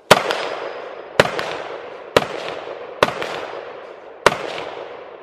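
Five rifle shots fired at an uneven pace, about a second apart. Each shot is a sharp crack followed by an echo that dies away.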